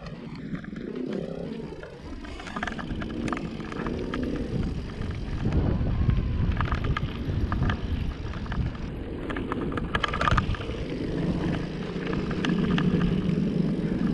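Mountain bike being ridden, heard from a camera on the move: a steady rumble of wind and tyre noise, with scattered rattles and knocks from the bike.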